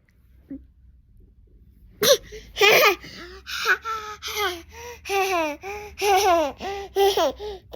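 A 13-month-old baby laughing in a run of short, high-pitched giggles that starts about two seconds in.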